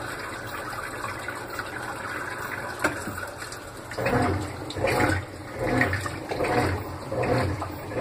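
Top-loading washing machine starting its wash after filling to its set level: a steady rush of water, then from about four seconds in the agitator churns the water in regular strokes, a little more than one a second.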